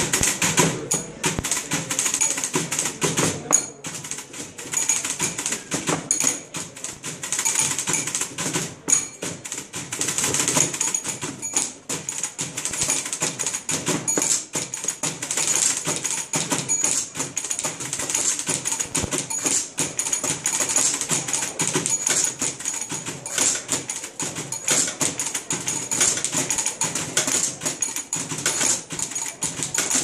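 Several manual typewriters played together as percussion: a dense, continuous clatter of keys and typebars striking.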